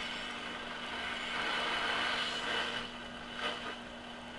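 Shortwave static hissing from a Philco 38-116 console radio's speaker, with a steady low hum, as the dial is tuned near WWV's 5 MHz signal, which is real faint. A few soft knocks come near the end.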